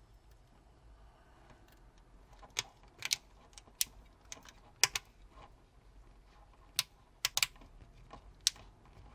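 About ten sharp, irregular clicks and taps, some in quick pairs, from small parts of a Samsung Galaxy S4 being handled and snapped back into place as the phone is reassembled.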